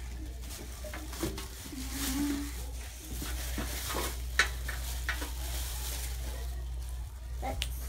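Thin plastic shopping bag rustling and crinkling with irregular sharp crackles as hands rummage inside it, over a low steady hum.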